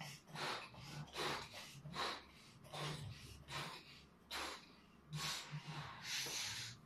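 Two people blowing up rubber balloons with short, quick breaths: a string of brief breathy puffs, roughly one a second, with breaths drawn in between.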